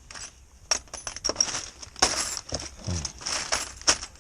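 Small hard objects being handled: a string of sharp clicks and clinks with rustling and short clatters, as bits of metal and gear are rummaged through and worked by hand.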